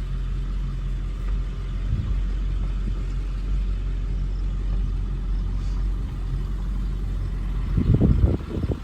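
Vehicle driving, heard from inside the cab: a steady low engine and road rumble, with a few louder low thumps near the end.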